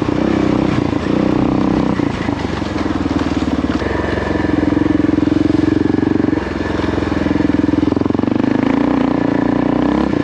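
2006 Kawasaki KLR650's single-cylinder four-stroke engine running under way on a gravel trail, its note swelling and easing back a few times as the throttle is opened and closed.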